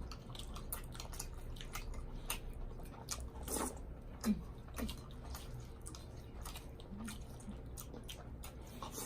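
A person chewing food close to the microphone, with many small wet mouth clicks; a somewhat louder sound comes about three and a half seconds in.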